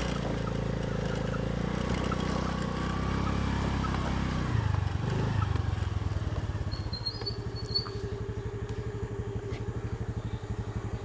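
Honda Dio scooter's small single-cylinder engine running at low revs; about halfway through the pitch drops and it settles into an even idle.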